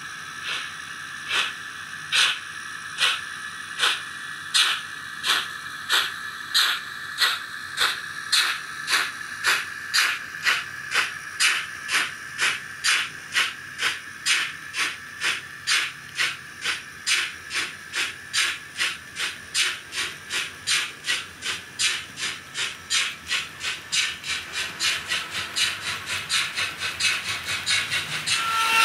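Steam-locomotive exhaust chuffs from the ESU LokSound V5 sound decoder in a Roco model of DR 18 201, played through the model's small speaker as the locomotive accelerates. The beats start at about one a second and quicken steadily to about four a second, over a steady high whine.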